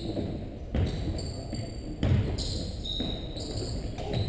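A basketball bouncing on a gym's hardwood floor during play, a few dull thuds, with short high squeaks of shoes on the court.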